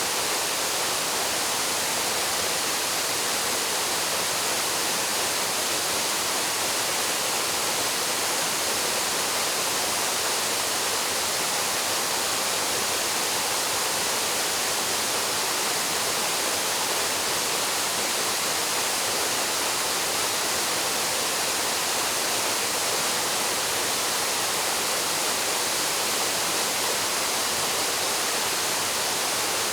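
Waterfall plunging into its pool: a steady, unbroken rush of falling water, strongest in the high hiss with little low rumble.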